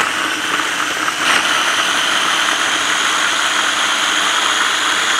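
KitchenAid mini food chopper's motor running steadily, its blade chopping quartered fresh tomatoes into a rough purée.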